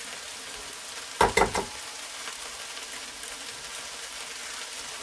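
Pan of mushrooms sizzling steadily on the stove, with a quick run of three or four knocks a little over a second in.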